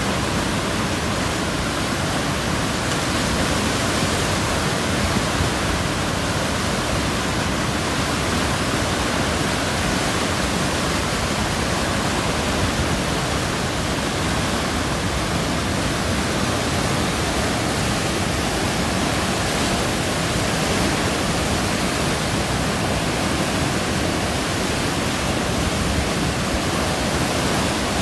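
Potomac River floodwater spilling over a low dam's crest and churning in the whitewater below: a steady, full rushing of high water with no breaks.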